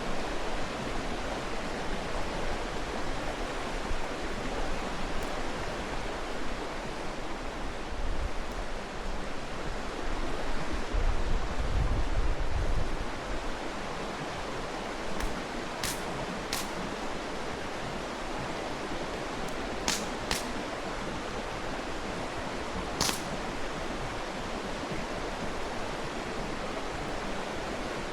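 Mountain stream flowing with a steady rush, and a handful of sharp pops from the campfire's burning wood in the second half. A low rumble swells for about two seconds near the middle.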